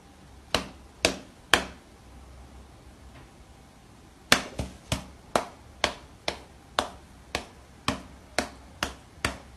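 A cat's paw slapping against a person's open palm: short sharp pats, three in quick succession, then after a pause a steady run of about two a second.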